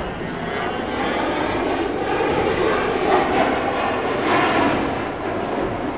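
Jet engine noise of a HAL Tejas fighter, its General Electric F404 turbofan giving a steady rushing roar that swells slightly through the middle and eases a little near the end.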